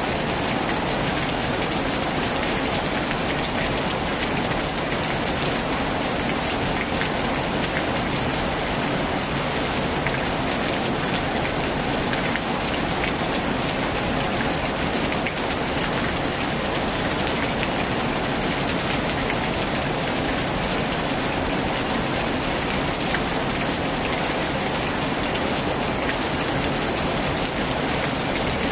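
Heavy rain falling steadily on a tin roof, a dense even hiss with scattered drops ticking through it.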